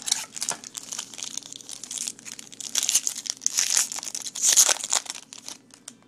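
Clear plastic wrapping crinkled and torn by hand as a trading-card pack is opened: dense crackling and tearing, loudest about four and a half seconds in, that stops just before the end.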